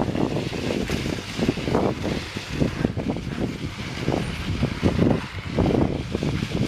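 Wind buffeting the microphone of a handheld camera carried on a moving mountain bike: an uneven, gusty rumble.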